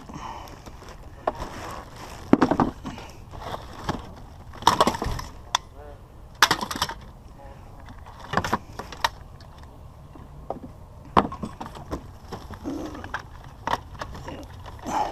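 Scrap items being handled and shifted about in a curbside junk pile: a string of irregular knocks, clatters and rattles, with a few louder clattering bursts.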